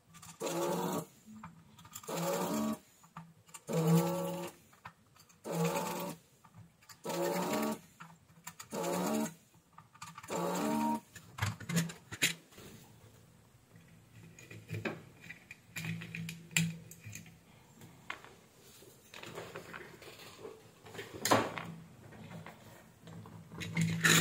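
Electric vacuum desoldering gun's pump motor switching on in short pulses, seven times in about eleven seconds, each a brief hum with a hiss of sucked air as solder is drawn off the pins of the power supply's controller IC. After that come faint handling clicks as the board is moved.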